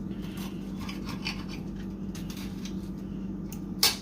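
A mouth chewing crunchy toast, giving repeated short scratchy crunches over a steady low hum, with one sharp click near the end.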